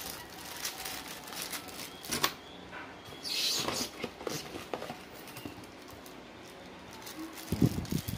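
Crinkling of small clear plastic bags being handled and opened, with scattered clicks and taps of plastic mount parts. A sharp tap comes about two seconds in and a brief rustle of plastic about a second later.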